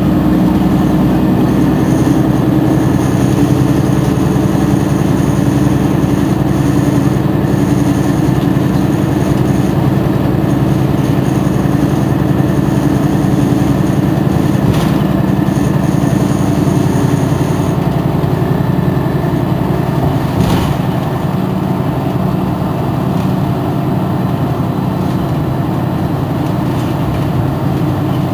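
Mercedes-Benz Citaro G C2 articulated city bus engine running steadily, an even low hum with no change in speed. A faint high whine above it stops a little past halfway, and there is a single click shortly after.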